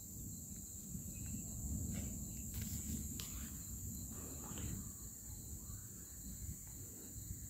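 Crickets trilling in a steady, even high pitch over a continuous low rumbling noise, with a couple of brief scratchy clicks about three seconds in.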